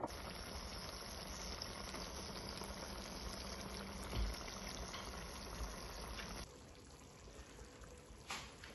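Kefta tajine sauce simmering in a clay tajine as eggs poach in it: a steady bubbling hiss, with a soft thump about four seconds in. The sound drops quieter about two-thirds of the way through.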